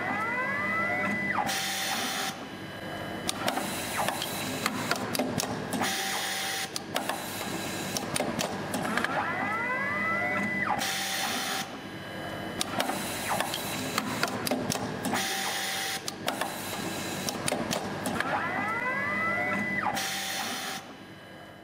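Automated tubing cutting and coiling machine running through repeated work cycles: a motor whine rises in pitch, holds a steady tone and then drops to a lower one, several times over, amid mechanical clatter and sharp clicks.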